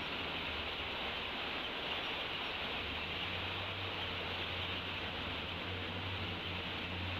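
Steady outdoor background noise: an even hiss with a low rumble that grows a little stronger in the second half, and no eaglet calls.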